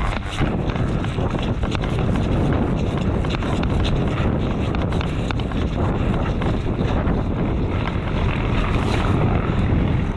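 Steady wind rumble on the microphone with a constant run of small knocks and rattles from gear being carried on the move.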